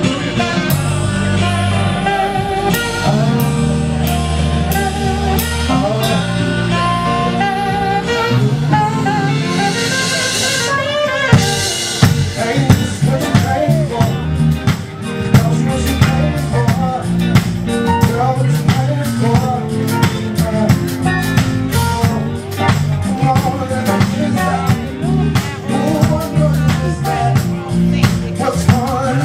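Live band music with drum kit and electric guitar. About eleven seconds in it cuts abruptly to a different song, with sharp regular drum hits and a singer.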